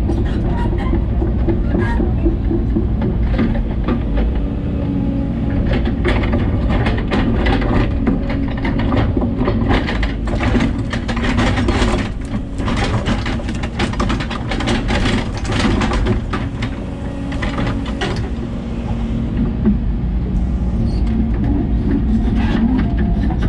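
Hidromek excavator's diesel engine running under load, heard from inside the cab, with the hydraulics working as the boom and bucket move. Sharp knocks and clanks of stone and steel come through, thickest about halfway through.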